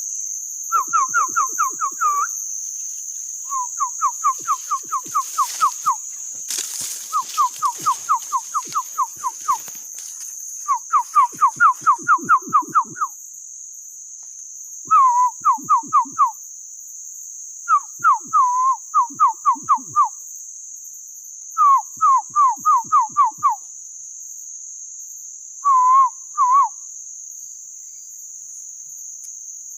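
A man imitating a bird call by mouth as a lure for a mist net: repeated short phrases of quick, downward-slurred whistled notes, about six a second, with gaps of one to two seconds between phrases. A steady high insect buzz runs underneath.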